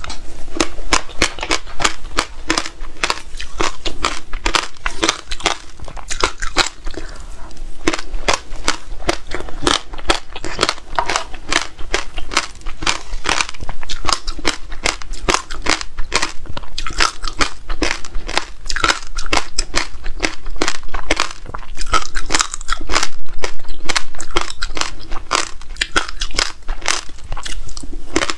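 Close-miked crunching and chewing of frozen passion fruit pulp topped with black seeds and buckwheat: a dense, continuous run of crisp crackles and crunches.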